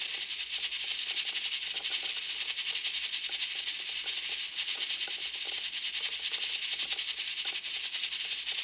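Electric pressure rice cooker cooking, a steady hiss of steam with a fast, fine rattle.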